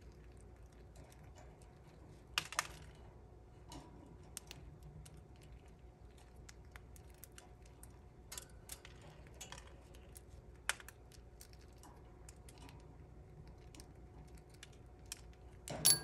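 Two budgerigars pecking at a hand-held seed cookie: irregular small clicks and crunches of beaks cracking seeds, with a couple of louder cracks about two and a half seconds in and near eleven seconds.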